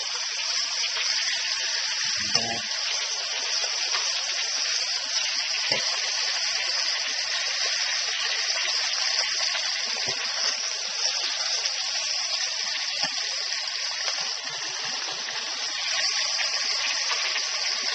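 Tuna and tilapia pieces frying in hot oil in a pan: a steady, high sizzle, with a few light ticks.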